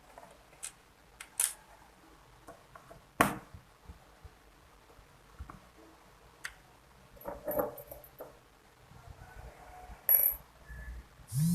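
Scattered sharp clicks and small plastic-and-metal knocks of a laptop being handled and worked on, with a short clatter about halfway through.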